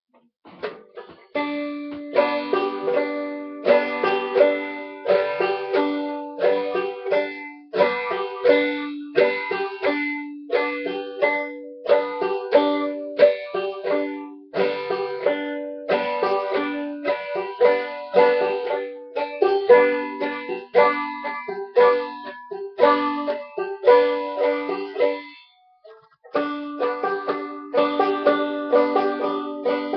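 Banjo played clawhammer style by a learner: a steady rhythm of plucked and brushed notes that starts about a second in, breaks off briefly about 25 seconds in, and picks up again a second later.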